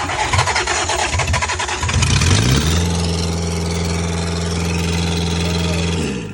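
Four-cylinder Kubota diesel in a 1998 Gehl skid steer cranking and firing; about two seconds in it catches, revs up and settles into steady running, then winds down near the end. It is starting after a fuel pump rebuild and bleeding of the lines.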